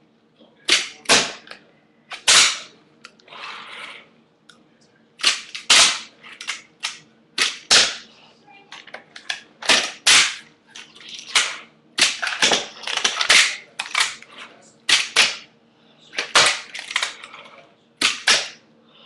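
Handboard (a small skateboard worked with the hands) clacking on a bench obstacle during tricks: a string of sharp wooden snaps as the board pops and lands, often in quick pairs, coming every second or two.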